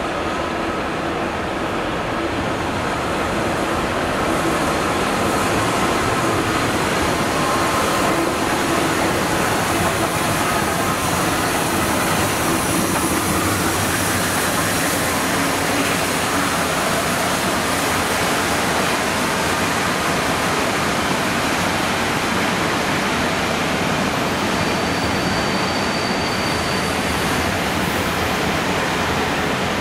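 Steam locomotive 35028 Clan Line, a Bulleid Merchant Navy class Pacific, running past with its train of Pullman coaches: a steady rush of locomotive and wheel noise that grows as it draws near. A short high squeal comes near the end.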